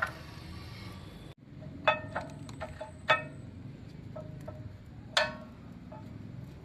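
Scattered light metallic clinks and taps, several with a short ring, the loudest about two, three and five seconds in, as steel brake parts and tools are handled during a rear brake pad change.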